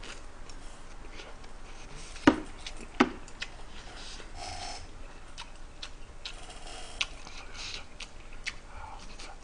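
Metal chopsticks and spoon clicking against a bowl and a yellow metal pot: two sharp clicks a little over two and three seconds in, then lighter ticks, with quiet eating noises between.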